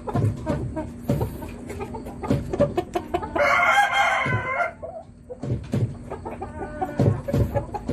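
A rooster crows once, a little over three seconds in, lasting over a second. Around it come quick taps and clicks of a gamecock pecking feed from a plastic bowl.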